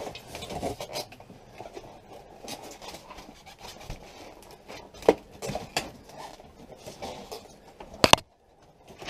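Irregular scraping, rubbing and clicking as an RV water heater in foam packing is worked into a framed cut-out in an RV's sidewall. There is a sharp knock about halfway through and a quick double knock near the end.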